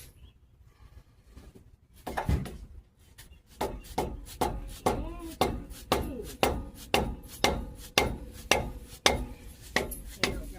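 A hammer striking repeatedly: one blow about two seconds in, then a steady run of blows at about two a second.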